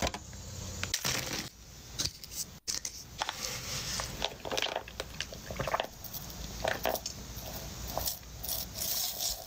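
Crinkling and clicking of clear plastic fast-food packaging being handled: a scattered series of short clicks and crackles, with mouth noises of eating and sipping through a straw.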